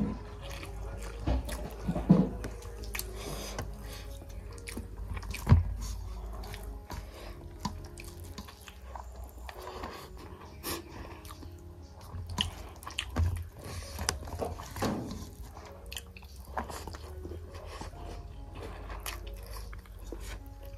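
A person eating rice and pork curry with the fingers: chewing and mouth smacking, with fingers working the rice on a steel plate, and irregular short clicks, the loudest about two seconds and five and a half seconds in.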